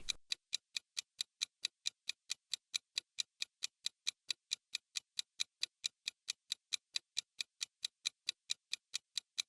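Clock-ticking sound effect of a quiz countdown timer: steady, even ticks at about four a second, counting down the time to answer.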